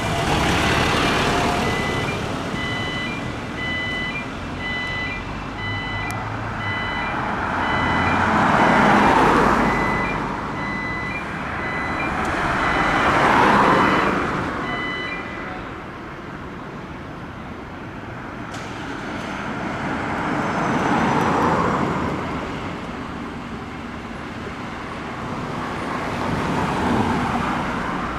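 Road traffic passing in a series of swells, with a repeated electronic warning beep for roughly the first half.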